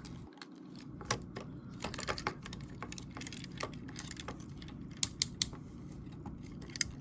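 Hard plastic parts of an MPM Ratchet Transformers figure clicking and clacking as they are handled and pressed together. There is a scatter of small ticks, with a few sharper clicks a little after five seconds in, over a low steady hum.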